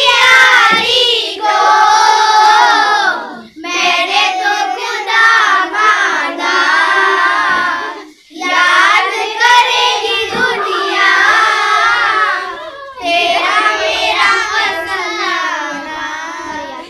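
A group of children singing a song together in chorus, in long sung phrases with short breaks for breath about every four to five seconds.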